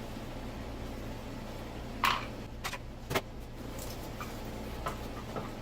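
Metal clinks and knocks of hand tools and engine parts being handled during engine disassembly, a sharp ringing clank about two seconds in the loudest, with several lighter knocks after it over a steady low hum.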